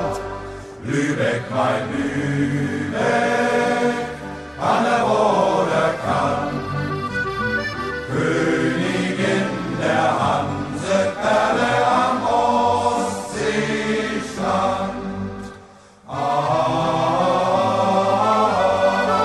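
Choral music: voices singing in long sustained phrases, with short breaks between them.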